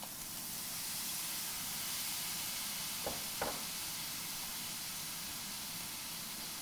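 Stir-frying: food sizzling in a hot pan with a steady hiss, with two sharp knocks a little past the middle.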